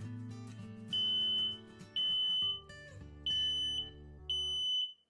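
Smoke detector alarm beeping: four high, steady beeps, each about half a second long and roughly one a second apart, over acoustic guitar music.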